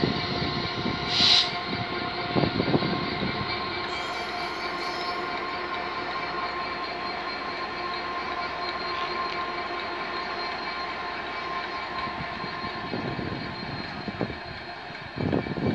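Two coupled locomotives, a Class 66 diesel and a Class 90 electric, rolling past on the rails: the diesel's engine running with a steady rumble and a steady squeal of wheels on the rails. A few short bumps come in the first three seconds and a louder low one near the end.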